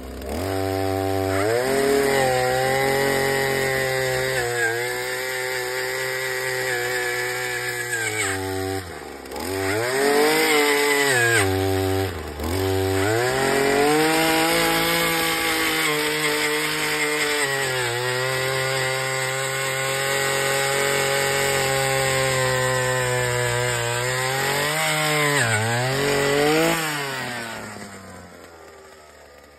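Gas-powered one-man earth auger's small two-stroke engine running hard as the spiral bit bores into the soil, its pitch sagging and picking up again several times as the throttle is eased and reopened. Near the end the engine falls back and fades.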